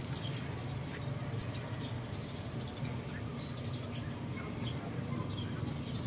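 Outdoor ambience: scattered faint chirps of small birds over a steady low rumble.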